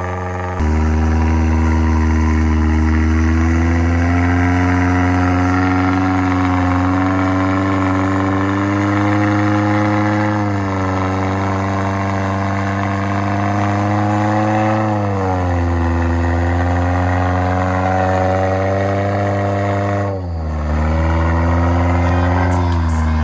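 Off-road 4x4's engine running steadily under load, its revs wandering slowly up and down and dropping sharply twice, about two-thirds in and near the end.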